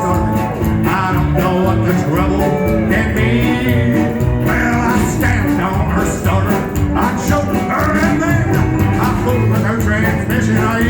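Live band playing a country-flavoured rock and roll song with a steady drum beat.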